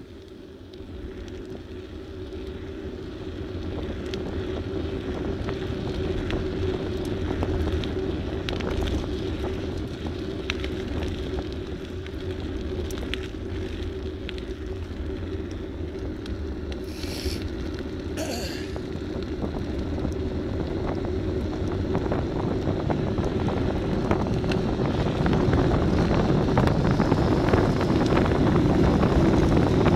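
Wind buffeting the microphone over a low road rumble from a moving vehicle, growing steadily louder as speed builds. Two short high-pitched sounds come about a second apart just past the middle.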